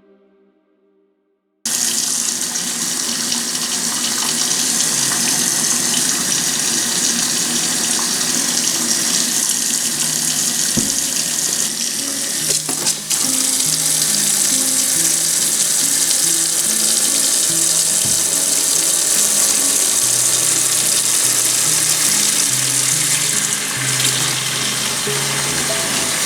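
Water running steadily from a tap, switched on abruptly about two seconds in. Soft background music with slow low notes comes in partway through.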